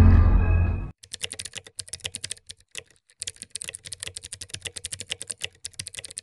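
Music cuts off about a second in. Rapid computer-keyboard typing follows, a quick run of key clicks with a short break about three seconds in.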